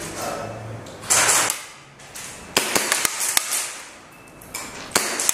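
Sharp, irregular clicks and knocks. A brief hiss comes about a second in, and a quick cluster of several clicks comes about two and a half to three and a half seconds in.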